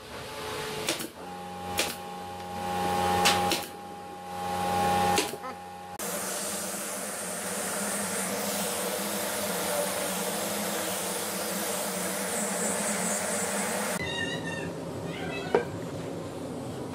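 A pneumatic brad nailer fires a few sharp shots into a wooden box over a steady hum. About six seconds in it gives way to an angle grinder with a sanding disc running steadily against a wooden board for about eight seconds, which cuts off abruptly. Quieter handling of wooden boards follows, with a single sharp knock.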